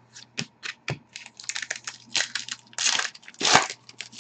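Hockey trading cards being flipped and dealt onto a hard table in quick clicks and slaps. Past the middle come two louder crinkles, typical of handling a foil card pack.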